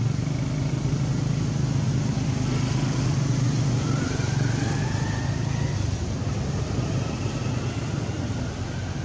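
Low, steady drone of an engine running nearby, swelling slightly in the middle. A faint rising whistle comes through about halfway.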